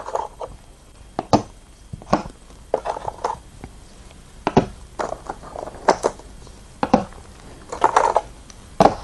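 Go stones being set down on a demonstration board: a string of about a dozen sharp clacks, unevenly spaced, with a few softer knocks between them, as a sequence of moves is laid out.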